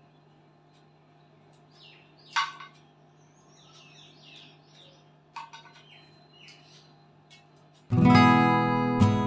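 Faint snaps and rustles of leafy greens being picked over and broken by hand, with a few small clicks. Near the end, guitar music starts suddenly and is much louder.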